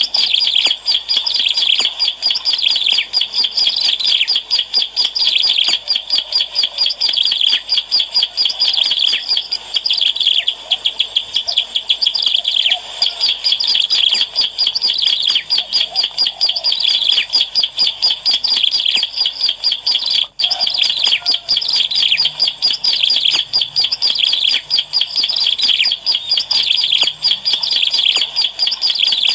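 Ciblek alang-alang (prinia) singing vigorously: a long, fast run of sharp, high chirping notes, many per second, with only brief breaks.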